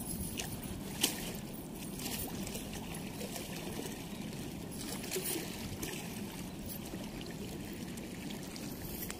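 Steady rush of water flowing through a weir, with light rustling of a nylon cast net being picked over and a sharp tap about a second in.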